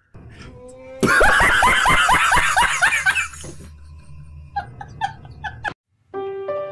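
A man laughing hard: a loud run of quick "ha-ha" bursts about a second in, trailing off into a few softer chuckles. Near the end, soft piano music begins with held notes.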